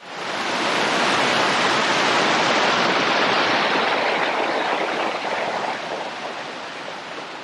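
Running creek water: a steady rushing hiss of a stream that fades in at the start and grows quieter over the last few seconds.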